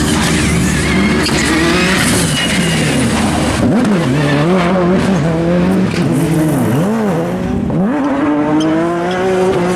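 Subaru Impreza WRC turbocharged flat-four engine in a Skodaru Fabia rally car, driven hard. The revs rise and fall sharply several times in quick succession through the middle, then hold a steadier, higher pull near the end.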